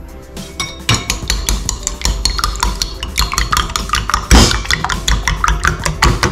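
A metal fork beats two raw eggs in a ceramic bowl, its rapid strokes clinking against the bowl's side. The beating starts about a second in, and one stroke a little past the middle knocks louder than the rest.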